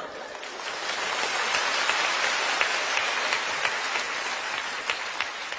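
Theatre audience applauding. The clapping swells to a peak about two seconds in, then gradually fades.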